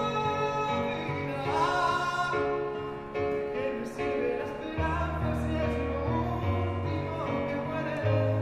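A man singing a slow ballad into a microphone while accompanying himself on a digital piano, with held chords over changing bass notes.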